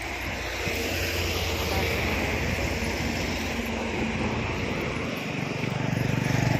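Motorcycle engine running as it passes on the road, growing louder near the end, over steady traffic and wind noise.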